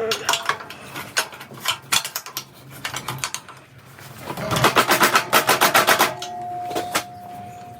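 Metal parts and tools clanking and knocking while the splitter head is worked loose from the hydraulic ram. A rapid run of clicking lasts about a second and a half. A steady tone holds through the last couple of seconds.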